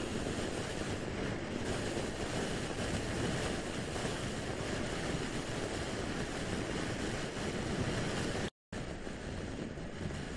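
Wind rushing over an action camera's microphone on a scooter riding at road speed: a steady, even roar with no clear engine note. The sound cuts out completely for a moment near the end.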